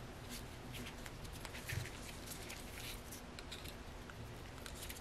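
Faint scattered clicks and light rubbing of small parts handled by hand, with one soft knock a little under two seconds in: a seal ring being worked onto a Mercedes ABC valve block.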